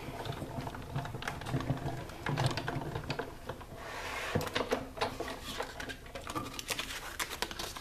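Big Shot die-cutting machine being hand-cranked, feeding a cutting-plate sandwich with a circle die and cardstock through its rollers: a run of irregular mechanical clicks over a low rumble.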